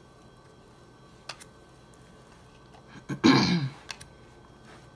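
Tarot cards being flipped and set down, with a few light clicks. About three seconds in comes one loud, short throat-clearing from a woman.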